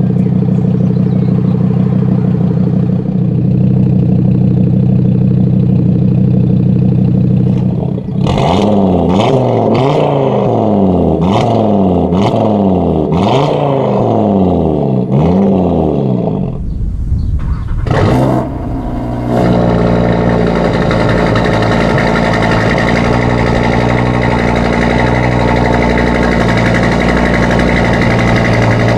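2016 Audi TT RS's turbocharged 2.5-litre inline five-cylinder running through an HG-Motorsport EGO-X aftermarket exhaust: idling steadily, then blipped through about eight quick revs, each rising and falling, with sharp cracks at the tops and a couple more as it drops back, then idling again.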